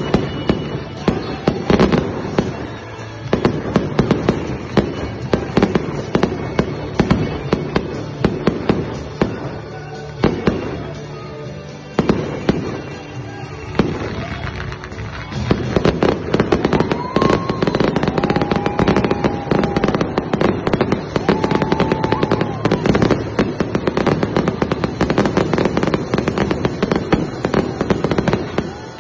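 Fireworks display: aerial shells bursting and crackling in a steady barrage, with sharp bangs coming several times a second and growing denser about halfway through.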